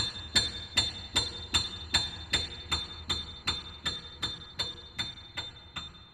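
Solo piano striking the same high chord over and over, about two and a half times a second. Each stroke is sharp and ringing, and the strokes grow steadily softer, from very loud toward very quiet.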